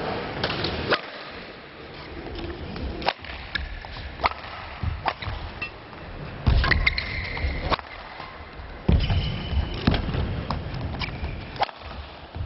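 Table tennis rally: the ball clicking sharply off rackets and the table in an irregular series, with a couple of louder, duller thumps partway through.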